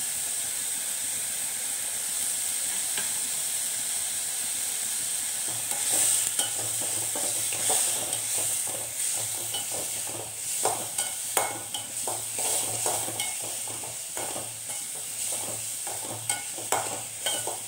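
Chopped vegetables sizzling in hot oil in a metal kadai, with a steady hiss. From about six seconds in, a metal spoon scrapes and stirs against the pan in quick, irregular strokes.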